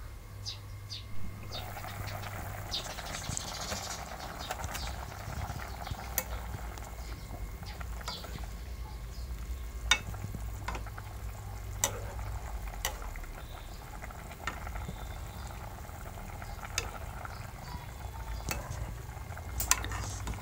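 Steel ladle stirring a bubbling chicken and potato curry in a wok, with a simmering hiss and several sharp clinks of the ladle against the pan.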